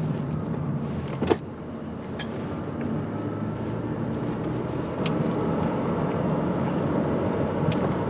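Steady road and tyre noise of a Honda Vezel Hybrid driving along a winding road, heard inside the car's cabin. A single sharp click sounds about a second in.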